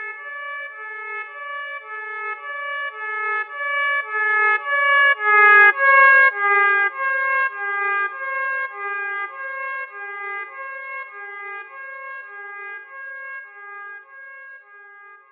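Emergency-alert-style alarm tone: a steady high tone held over a pitched chord that pulses about twice a second. It swells to its loudest near the middle, then fades away.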